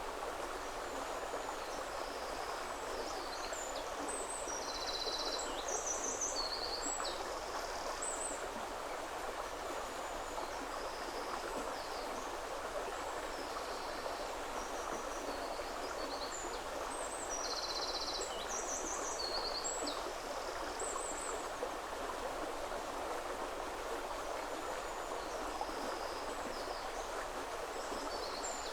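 Steady rush of a river flowing. A songbird sings the same short, high phrase of trills and buzzy notes three times, about every twelve seconds.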